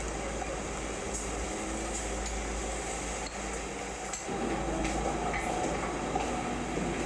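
Moving train's steady rumble, with a motor hum that comes in about four seconds in and a few light clinks.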